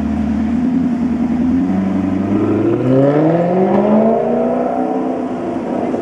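Maserati GranTurismo V8 pulling away: a low rumble at first, then the engine note climbs steadily in pitch for about two seconds as it accelerates, holds near its highest and eases off toward the end.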